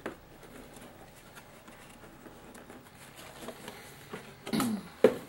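A tight cardboard model-kit box lid being worked open: little to hear at first, then near the end a short sound falling in pitch and a sharp knock, the loudest moment.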